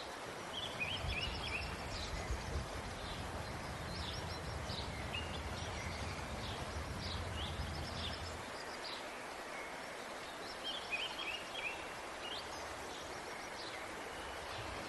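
Open fire burning with a steady hiss and a few small crackles, while small birds chirp in short repeated phrases. A low rumble underneath stops about eight seconds in.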